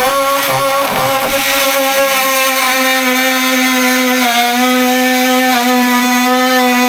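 Handheld power tool running steadily at one pitch, working on the van's ceiling, dipping slightly in pitch about four seconds in as it takes load.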